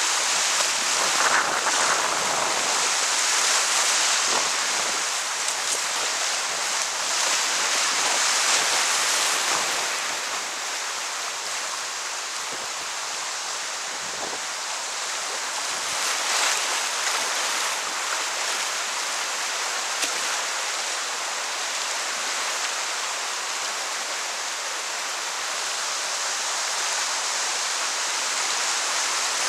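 Rushing whitewater of a river rapid heard from a kayak in the middle of it, a steady loud roar of churning water that eases a little about a third of the way through, with a few sharper splashes.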